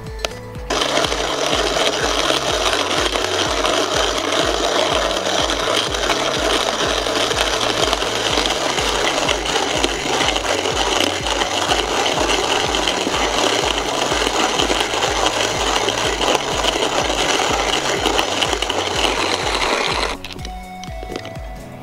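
Coffee beans being ground in a hand-cranked coffee grinder: a steady grinding that starts about a second in and stops shortly before the end. Background music with a steady beat runs underneath.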